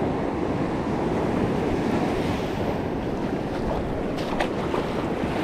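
Surf breaking on a sandy beach, a steady wash of waves, with wind buffeting the microphone.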